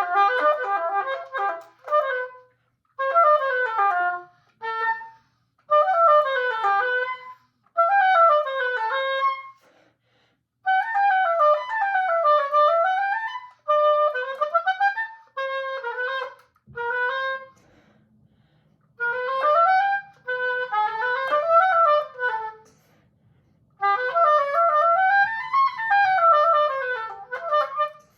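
Solo oboe practice: quick runs of notes climbing and falling in short phrases, broken by brief pauses.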